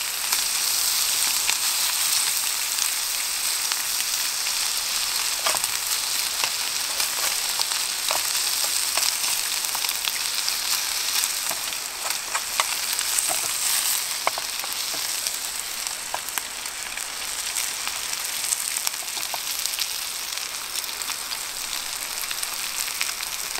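Burger patties and sliced red onion sizzling in a camping frying pan over an alcohol stove, the heat too high to regulate, with scattered small clicks and scrapes as a utensil stirs them now and then.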